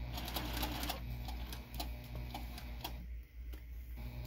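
Electric domestic sewing machine stitching fabric: a steady motor hum with regular ticking. It stops briefly about three seconds in, then starts again near the end.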